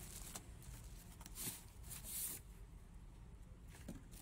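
Plastic packaging bags rustling and crinkling as hands handle them inside a cardboard box, with louder rustles about one and a half and two seconds in.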